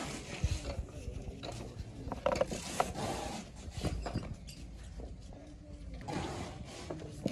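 Irregular mechanical clicks and knocks, several short sharp ones in the first three seconds, over a low background rumble.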